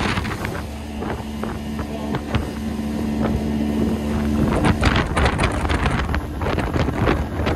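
Outboard motor on an aluminum fishing boat running at speed, a steady engine note under wind buffeting the microphone. Short thumps come more often in the second half as the hull meets the chop.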